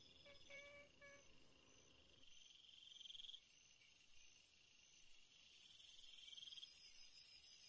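Faint night insects trilling. One trill swells and fades twice, and a higher, fast-pulsing buzz comes in about five seconds in.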